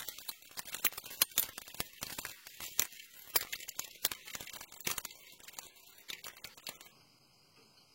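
Irregular metallic clicks, taps and scrapes of brake parts being handled and fitted: a rear brake pad and caliper being worked into the caliper bracket slots. The clicks stop near the end.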